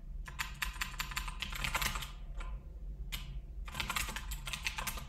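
Rapid typing on a computer keyboard: quick runs of keystrokes with a brief pause around the middle.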